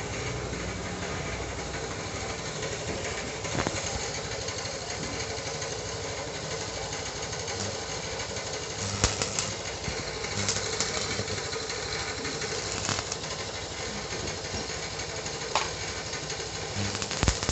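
Steady mechanical hum, with a few sharp clicks and short crackles scattered through it.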